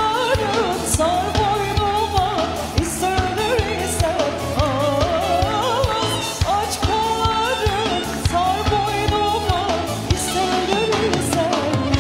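Music with singing over a steady beat, the melody wavering and bending in quick ornamented turns.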